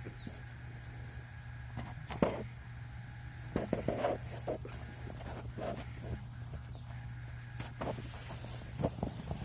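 A small bell on a kitten's collar jingling in short irregular tinkles as the kitten moves, with a few soft knocks and a steady low hum underneath.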